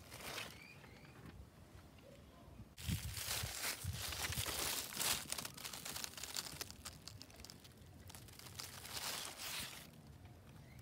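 Large cucumber leaves rustling and crackling as they are pushed aside by hand. A dense run of quick crackles starts about three seconds in and lasts about seven seconds.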